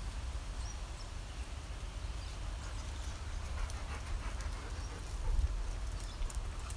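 Dogs panting and sniffing close by, with scattered faint ticks, over a steady low rumble.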